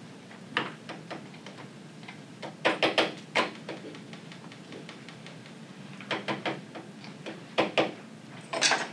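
Kitchen utensils clinking and knocking against bowls and cups at a worktable: irregular sharp taps in small clusters, the loudest near the end.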